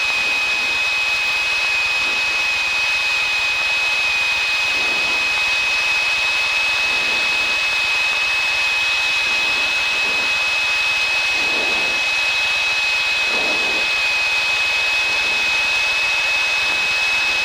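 Steady cabin drone of a Piper PA-28-161 Warrior in level flight: the four-cylinder Lycoming engine and propeller running at constant power, with a constant high-pitched whine through it.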